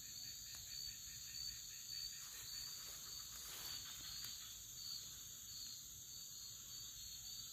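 Faint, steady high-pitched insect chirring with a faint rapid pulse.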